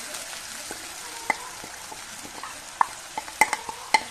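Ginger powder mix being scraped off a plate into a pan of sizzling oil and water with a spoon: a steady sizzle, with sharp spoon clinks against the plate and pan that come more often in the second half.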